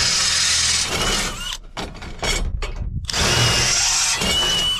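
DeWalt 20V XR cordless drill boring out holes in sheet-metal mounting tabs with a twist bit. There is a long run of drilling, then a few short trigger pulses, then a second long run that stops at the end, with a thin high squeal near the end.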